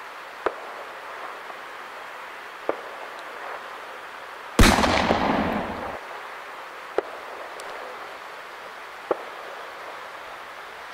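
One loud firework bang about four and a half seconds in, its noise dying away over a little more than a second. Sharp, fainter firecracker cracks go off every couple of seconds over a steady hiss.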